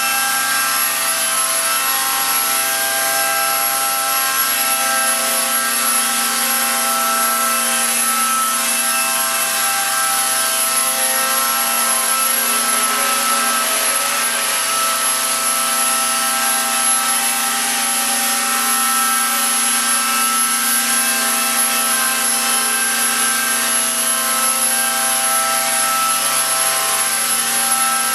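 Walkera M120D01 flybarless micro RC helicopter hovering: a steady electric motor whine and rotor hum at an even pitch.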